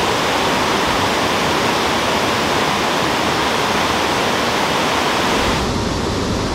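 Steady rushing of river water, a loud even hiss with no distinct events. About five and a half seconds in, the hiss thins in the highs and a lower rumble comes up.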